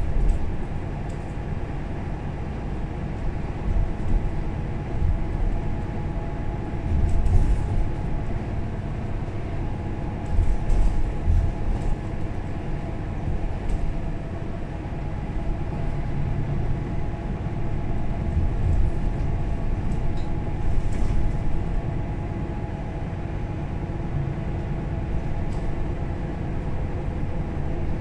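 Mercedes-Benz O530 Citaro Facelift city bus heard from inside while underway: a steady drivetrain hum with a faint whine over low road rumble. It swells in loudness now and then, with scattered light rattles and clicks.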